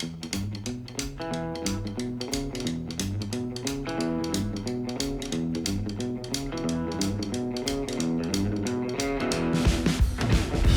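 Background guitar music over a steady beat, getting louder and heavier in the bass near the end.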